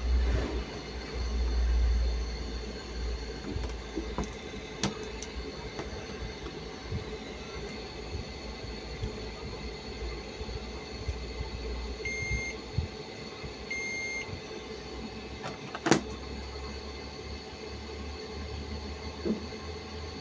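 Two short electronic beeps from a washing machine's control panel, a second and a half apart, then a sharp click a couple of seconds later, over a low rumble and steady hum.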